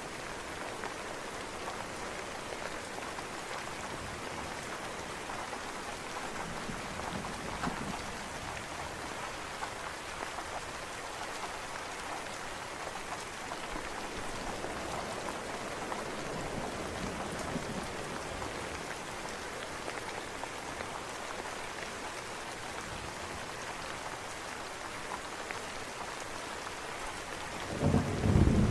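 Steady rain falling on a surface, an even hiss of drops. About a second before the end, a loud low rumble of thunder breaks in and becomes the loudest sound.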